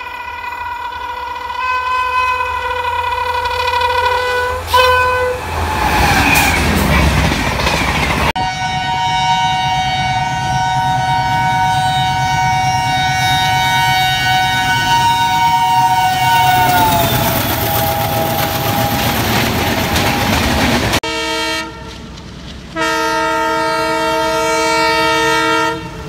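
Indian Railways locomotive horns blowing long blasts in three separate takes. The first is a single held horn note that slides down in pitch about five seconds in. The second is a two-tone horn held for about eight seconds, then sliding lower, over the rumble and rail clatter of a passing train. Near the end comes a short blast, a pause, and a three-second chord blast.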